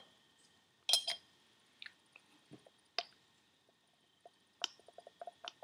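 Small metal parts and a hand tool clicking and tapping against a Holset HX40 turbocharger's aluminium bearing housing as the thrust parts are fitted: scattered single ticks, then a quick run of light ticks near the end.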